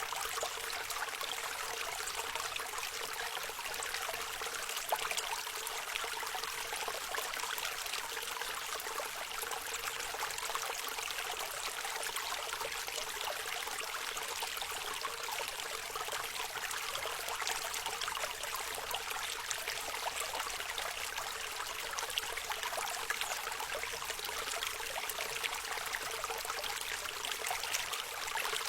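Forest stream flowing steadily, a continuous babble and trickle of water with no change in pace.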